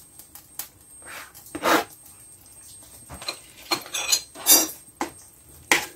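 Kitchen clatter from a plastic cutting board, a knife and a stainless steel pot: scattered knocks and clinks with short scrapes as chopped vegetables are swept off the board into the soup.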